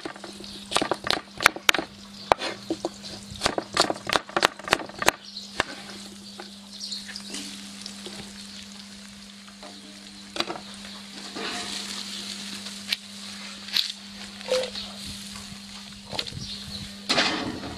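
A knife chopping apple on a wooden cutting board, a quick run of sharp knocks for about the first five seconds. Then food sizzling in a wok over a charcoal grill as it is stirred and tossed, with a louder clatter near the end.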